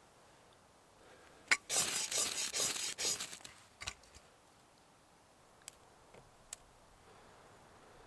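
Ferrocerium rod scraped hard with a striker to throw sparks onto feather sticks: a sharp click, then about a second and a half of rapid rasping scrapes. A few light taps follow.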